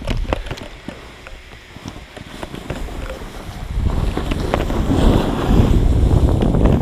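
Storm wind buffeting the microphone, swelling into a loud low rumble about four seconds in, with scattered sharp clicks before it.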